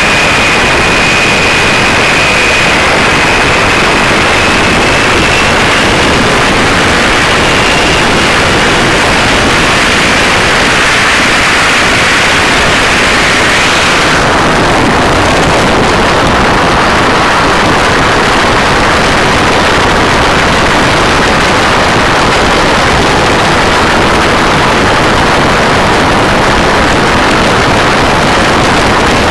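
Supercharged 572-cubic-inch Sainty quad-cam V8 of a ski boat running hard at speed. It is so loud close up that the onboard microphone overloads into a steady, distorted wall of noise mixed with rushing water spray, which turns duller about halfway through.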